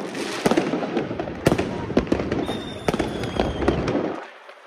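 New Year's Eve fireworks going off all around: a dense run of bangs, cracks and pops over a continuous crackle. A high whistle falls slightly in pitch for about a second in the middle, and the barrage thins out near the end.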